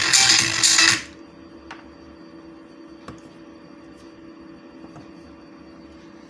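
Electronic dance music with a steady beat that cuts off about a second in, leaving a faint steady electrical hum with a few faint ticks.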